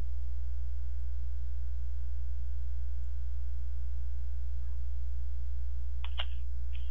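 Steady low electrical hum with a thin, faint high tone from an open voice-chat microphone line. A faint voice starts near the end.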